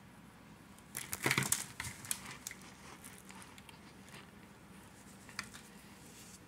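Compressed Argo laundry cornstarch crunching and crackling as it is crushed: a quick cluster of crisp crackles about a second in, dying away by two and a half seconds, and one more small crackle near the end.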